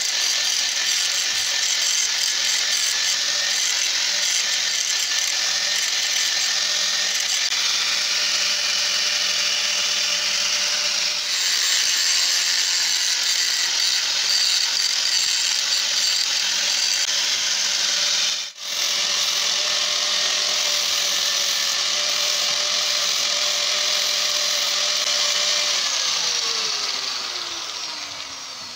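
Electric angle grinder running with a steady high whine, its abrasive disc grinding rust off the head of a threaded steel bolt. The sound breaks off for an instant about two-thirds through. Near the end the grinder is switched off and its whine falls in pitch as the disc spins down.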